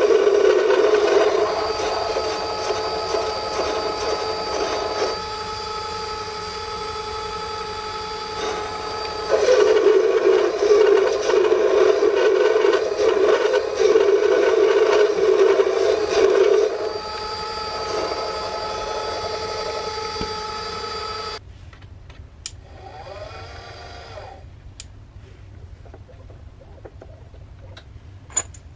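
Small metal lathe turning a steel bar: the spindle runs and the cutting tool scrapes through the metal, with steady whining tones throughout. The cutting noise is louder at the start and again from about 9 to 17 seconds in. The sound stops suddenly about 21 seconds in, leaving a faint whirr and a few sharp clicks near the end.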